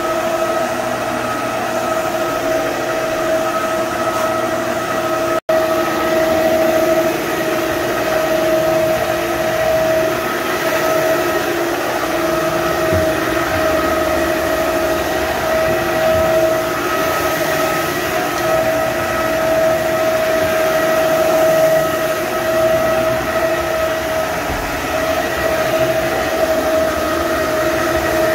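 Electric wet floor scrubber running steadily with a motor whine as it scrubs a wet hardwood floor. There is a momentary break in the sound about five seconds in.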